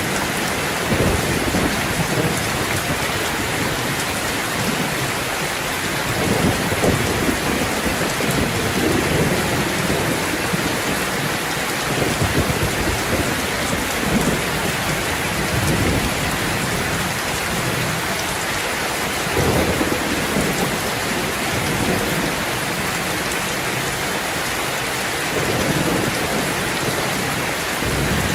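Steady heavy rain falling and splashing on surfaces, with short low rumbles every few seconds.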